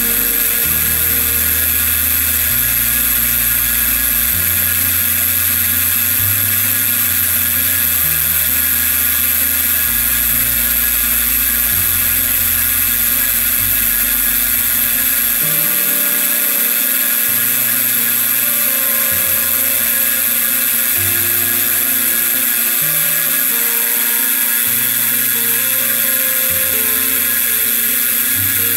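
Milling machine end mill cutting a slot in a metal pin on a rotary table, a steady high-pitched whine, under background music whose bass changes note every second or two.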